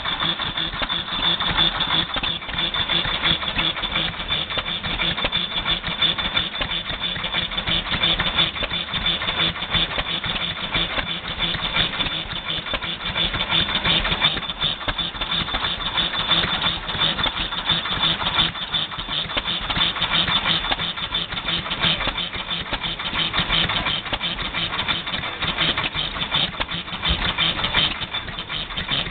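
Fairbanks-Morse Model Z stationary engine running steadily.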